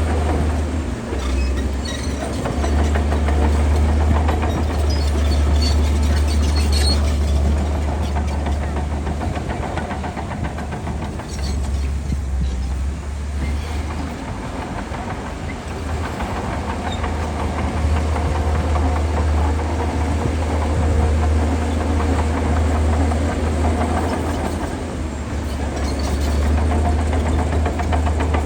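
Diesel engine of a Shantui DH17C2 crawler bulldozer running under load while pushing soil, a steady low rumble that eases off in the middle and builds up again.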